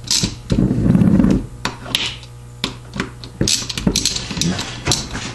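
Hand ratchet and socket running bolts down into a harmonic balancer hub: short bursts of rapid pawl clicking broken up by sharp metallic clicks and knocks.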